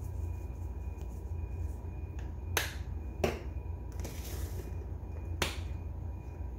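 Three sharp plastic clicks as seasoning shakers are handled, capped and set down on a tiled countertop, over a steady low hum.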